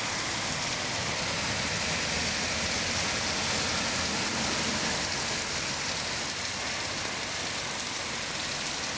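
Heavy rain pouring steadily onto pavement and a flooded street, an even hiss with no breaks.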